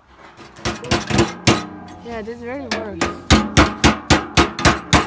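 Hammer blows on metal, the metal ringing between strikes: a few scattered blows, then a fast steady run of about four blows a second.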